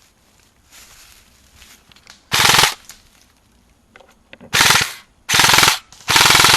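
Airsoft gun firing four short full-auto bursts of rapid shots. The first burst comes about two seconds in, and the other three follow close together near the end.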